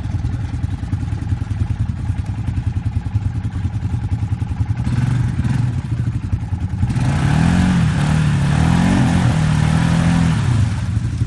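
An ATV engine is running with the quad stuck in a mud hole and its wheels spinning, throwing mud. About seven seconds in, the engine revs up and down harder for a few seconds, with a rush of spinning tyres and spraying mud, then drops back. The ATV does not drive out.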